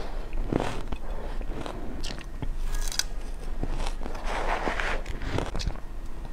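Close-up biting and crunching of mouthfuls of fluffy shaved ice, a series of separate crunchy bites, with a metal spoon scooping into the mound of ice.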